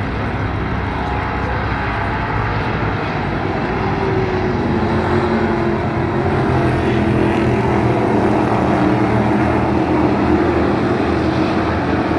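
Several dirt-track stock cars racing, their engines droning together and growing gradually louder as the pack comes round the turn toward the camera, with engine pitch shifting from about four seconds in.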